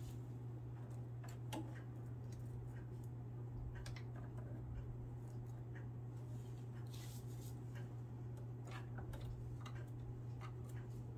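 Faint scattered clicks, taps and light scrapes of small parts of a Singer sewing machine being handled and wiped during cleaning, over a steady low hum.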